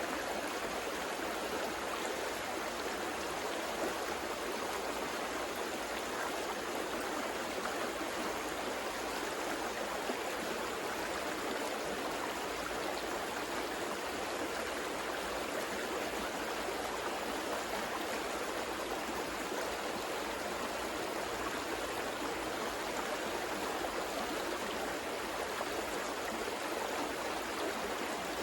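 River water running steadily over rocks, an even rushing with a light gurgle.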